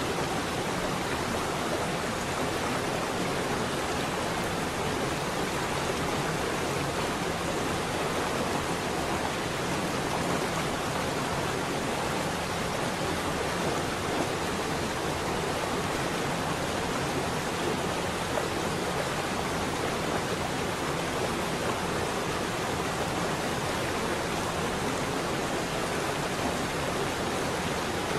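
Steady, even noise hiss with no tune, beat or clear speech: the background layer of a subliminal audio track, under which voiced affirmations are laid.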